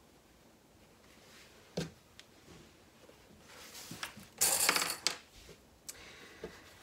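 Fabric bag panels rustling as they are turned over and pressed against the gusset, loudest about four to five seconds in. A few sharp clicks come from plastic sewing clips being snapped onto the seam edge.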